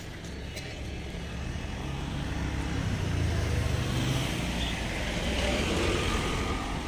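A motor vehicle driving past close by, its low engine rumble swelling to its loudest about three to four seconds in, over steady street traffic noise.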